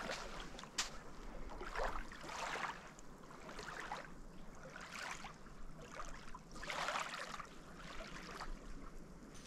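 Small waves lapping at the shore: a low hiss of water with a few soft washes a couple of seconds apart.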